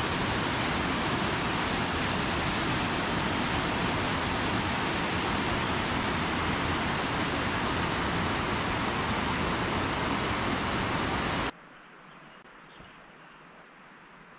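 Waterfall, falling water rushing in a steady, loud, even hiss. It cuts off suddenly near the end, leaving only faint background.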